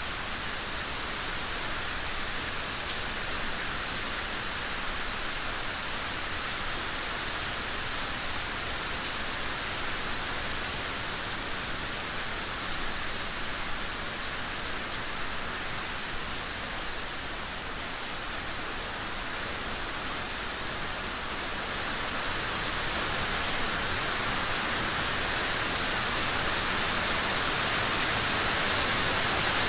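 Steady rain falling, an even hiss of drops, growing a little louder in the last third.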